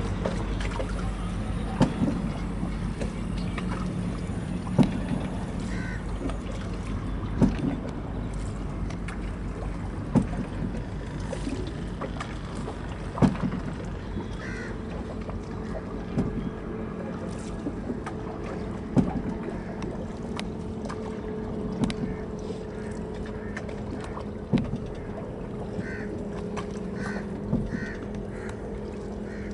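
Small wooden boat's engine running steadily with a low hum. A sharp knock comes roughly every three seconds.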